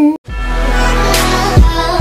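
A hummed note slides down and stops at the very start. After a brief dropout, end-screen background music begins, with a deep steady bass and a heavy beat hit about a second and a half in.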